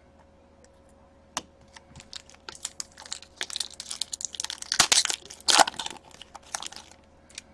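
Hockey trading cards and their packaging being handled at a table: a sharp click, then a run of rustling, crinkling and card-flicking clicks, loudest about five seconds in. A faint steady hum lies underneath.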